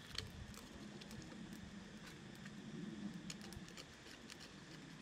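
Faint, irregular crackling and rustling of dry leaves and twigs as they are lit under a pile of lump charcoal.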